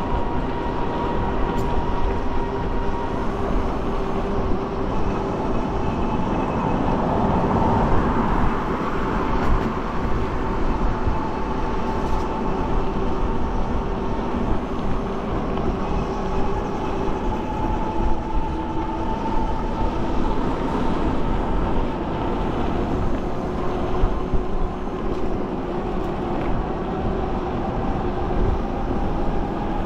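Electric bike riding on wet pavement: wind rushing over the microphone and tyres hissing, with the hub motor's faint steady whine drifting slightly in pitch as speed changes under pedal assist.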